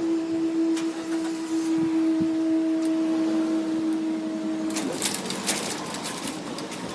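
A steady motor whine on one held pitch, which dips and recovers as it starts and cuts off with a short upward glide about five seconds in. A scatter of clicks and rattles follows.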